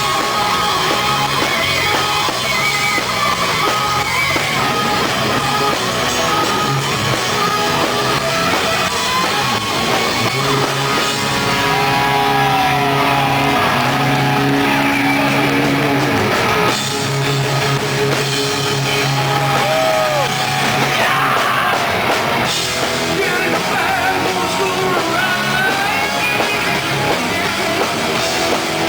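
Hard rock band playing: electric guitar, drum kit and a sung, partly shouted vocal.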